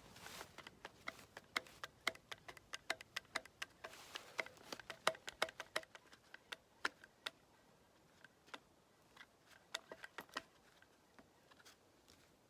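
A run of sharp, irregular clicks and ticks, dense for about the first six seconds and then sparser: a hand grease gun being fitted with a fresh grease cartridge and worked.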